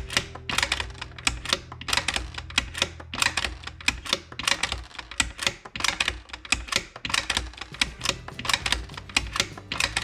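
Bolt of a Bergara B14 bolt-action rifle in an MDT XRS chassis being worked repeatedly by hand, cycling dummy rounds from the magazine: a rapid series of metallic clacks as the bolt opens, draws back, pushes forward and locks, with dummy rounds being extracted and ejected. It is a function test of feeding, extraction and ejection.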